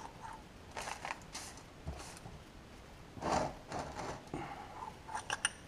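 Handling noises: scattered scrapes and rustles, then a few light clicks near the end. Gloved hands are sliding a new steel DQ200 oil accumulator out of its housing and shifting the plastic wrapping.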